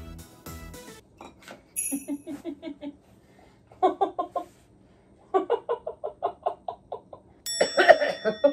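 A woman laughing in quick, stifled bursts with her mouth full of food and her hands over her mouth. A chime sound effect rings about two seconds in and another near the end, and background music stops about a second in.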